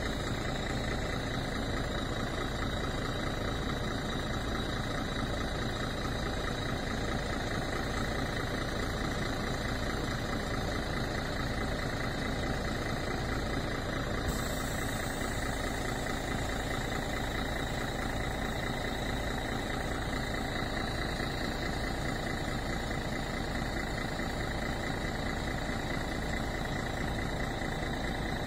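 Rear-mounted MAN D28 diesel engine of a MAN NL 263 city bus idling steadily, heard from behind the bus.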